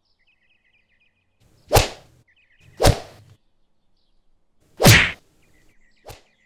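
Whoosh sound effects of an animated logo intro: three loud swishes, then a short, quieter one near the end, with faint high chirping twinkles between them.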